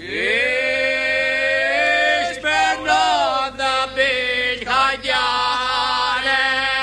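Chanting voice, unaccompanied, starting abruptly on a long held note. In the middle the line breaks into short wavering phrases with bending pitch, then settles back into long held notes near the end.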